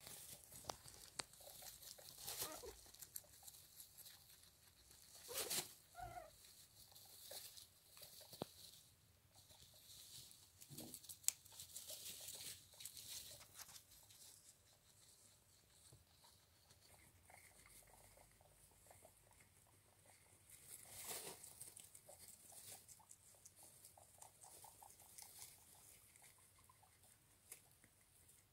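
Faint rustling and scratching of wood-shavings bedding as newborn guinea pigs and their mother shift about, with scattered small clicks; the rustling swells a few times, most strongly about 5 to 6 seconds in and again about 21 seconds in.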